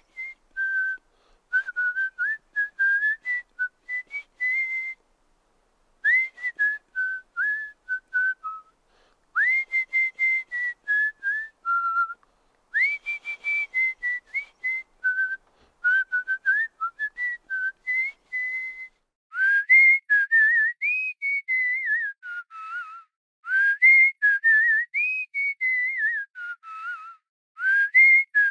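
A person whistling through the lips: phrases of short, quick notes that step and slide up and down in pitch, with short pauses between phrases.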